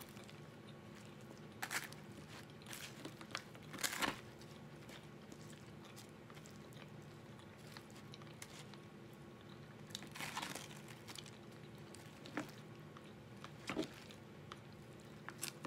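Quiet eating of a chicken pot pie: chewing, plus a handful of short, scattered crunches and clicks as a fork digs into the pastry crust in its foil tin. A faint steady hum runs underneath.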